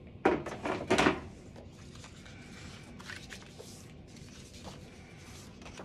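Two short scraping strokes of a scoring stylus drawn along cardstock on a scoring board, about a second apart, followed by faint paper handling.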